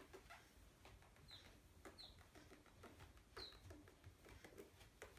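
A duckling peeping faintly: three short, high peeps, with soft footsteps on carpet between them.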